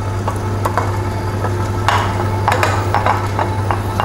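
Electric stand mixer running with a steady motor hum, its beater turning through thick batter in a steel bowl with irregular clicks and knocks, thickest about two to three seconds in.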